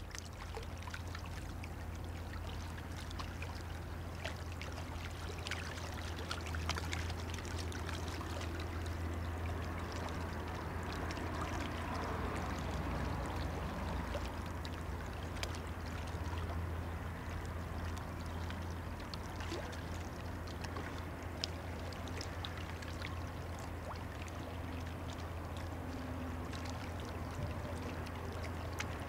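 Rhine river water lapping and splashing at the bank, full of small quick splashes, over a steady low drone.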